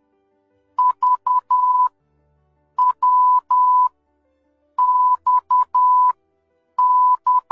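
Morse code played as one steady beep tone, keyed in short and long beeps: four letter groups about two seconds apart, reading ...- (V), .-- (W), -..- (X) and -.-- (Y), letters of the alphabet sent one after another.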